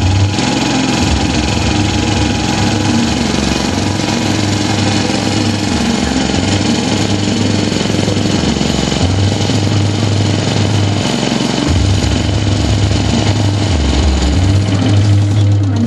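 Honda self-propelled lawn mower's single-cylinder four-stroke engine running steadily, with a strong low hum that swells and eases every second or two.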